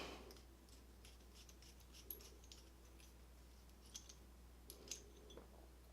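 Faint, scattered small metal clicks and light scrapes from a picked Kwikset KIK lock cylinder being pulled apart by hand.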